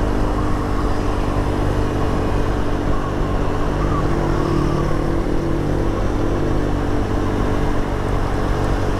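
Motorcycle engine running at a steady cruising speed, with road noise.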